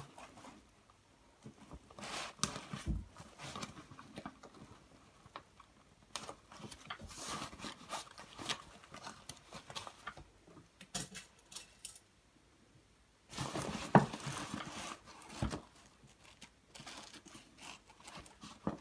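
Thin clear plastic sheeting and nylon canopy fabric rustling and crinkling in irregular bursts as the plastic is pulled tight and pinned in place, with a sharp click about fourteen seconds in.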